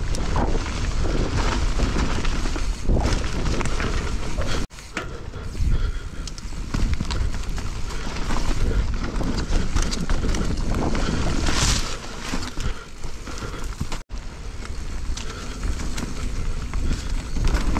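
Mountain bike riding fast down a dirt trail, heard from a rider-mounted camera: wind rushing over the microphone, tyres on dirt and the bike rattling and clicking over bumps. The sound cuts out for an instant twice.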